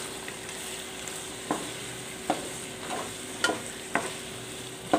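Raw chicken wings and sliced onions sizzling in a nonstick pot while a wooden spoon stirs them, the spoon knocking against the pot several times.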